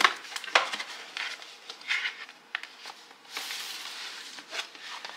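A cardboard cake box being opened and handled: a couple of sharp knocks at the start, then dry rustling and scraping of cardboard, the longest stretch just past the middle.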